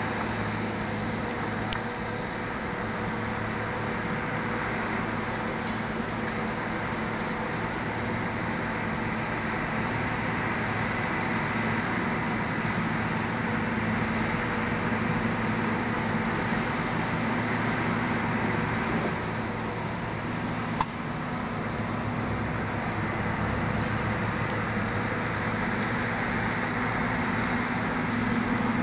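Case bulldozer's diesel engine running steadily, with one sharp clank about two-thirds of the way through.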